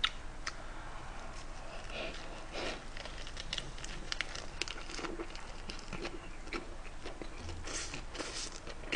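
Close-up chewing of a mouthful of lettuce wrap (ssam) filled with spicy pork bulgogi and rice: wet mouth clicks and soft crunches of the leaf, faint and scattered.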